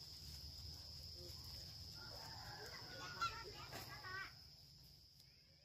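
Chickens clucking in a short run of wavering calls, from about two seconds in until just past four, over a steady high whine and a low rumble. A single sharp knock, the loudest sound, comes in the middle of the clucking, and everything fades near the end.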